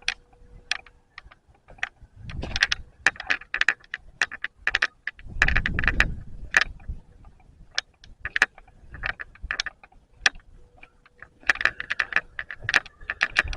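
A camcorder's loose on/off switch rattling and clicking as the camera is carried while walking, heard through the camera's own microphone. It comes as irregular runs of clatter, with a few duller handling thumps among them.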